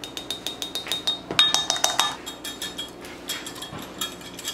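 Wire whisk clinking rapidly against the sides of a glass Pyrex measuring cup, whisking cornstarch into teriyaki sauce. The glass rings faintly after the hits, which come thickest about one and a half to two seconds in.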